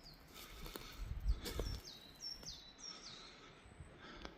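A bird singing a short run of about four high whistled notes, each sliding down in pitch, over faint outdoor background noise. A few dull low thumps come just before the song.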